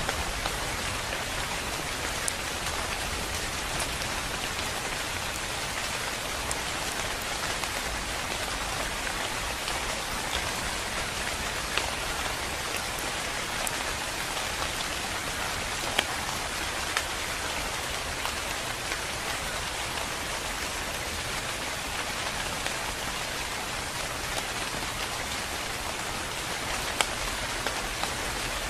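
Steady rain falling on leafy foliage, an even hiss with a few sharper single drop ticks now and then.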